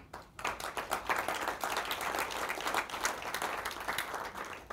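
Audience applauding. The clapping builds within the first half second and dies away near the end.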